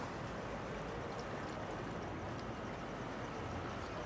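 Shrimp trawler's diesel engine running steadily as the boat motors past, mixed with the rush of its bow wave on the water.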